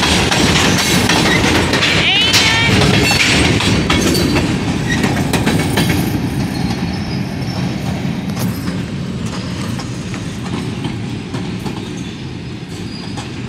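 Freight train cars rolling past, steel wheels clattering with scattered clicks over the rail joints, and a brief gliding squeal of wheel on rail about two seconds in. The noise fades gradually as the cars pass by.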